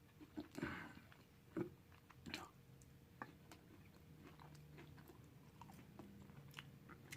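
Faint close-up chewing and mouth sounds of someone eating a cheeseburger, with a few soft smacks in the first three seconds, then near silence.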